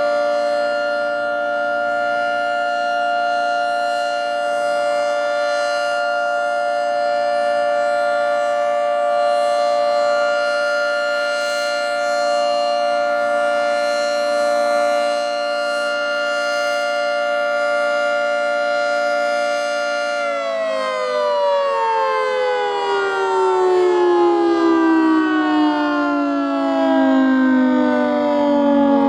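Federal 3T22 three-tone electromechanical warning siren sounding a steady, loud chord at full speed. About two-thirds of the way in the pitch starts to fall and keeps sliding down as the siren winds down.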